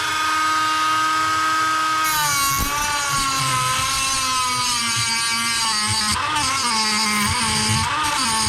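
Ryobi cordless die grinder running at a steady high whine, then grinding the steel lever of a Proto ratchet off from about two seconds in: a gritty hiss joins the whine and its pitch sags and wavers under the load.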